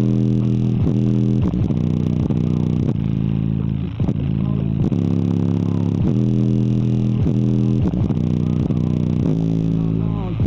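Loud, bass-heavy music played through a homemade two-driver speaker box, its woofers pumping hard. Deep bass notes dominate, with short downward-sliding notes about every second.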